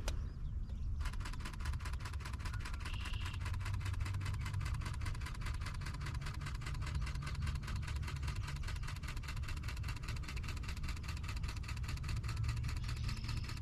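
Camera shutter firing in a long continuous burst, about seven frames a second, starting about a second in, over a low steady rumble.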